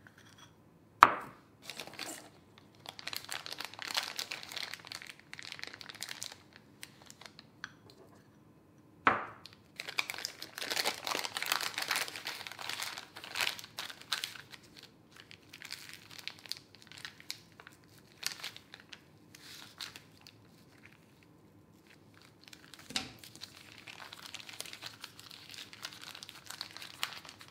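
Disposable plastic piping bag crinkling and rustling as icing is scraped into it and then squeezed down and twisted closed by hand, with two sharp knocks, one about a second in and one about nine seconds in.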